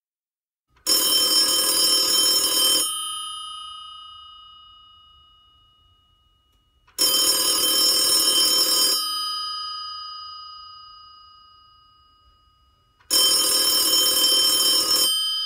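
Telephone bell ringing three times, each ring about two seconds long and about six seconds apart, with the bell tones fading away after each ring.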